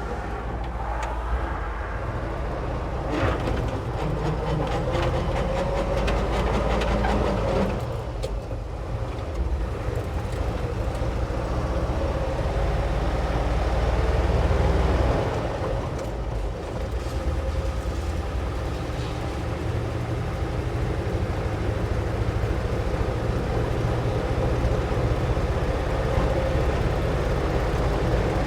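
Ford F600 medium-duty truck on the move, heard from inside the cab: steady engine and road noise that builds, dips about halfway through, then builds again.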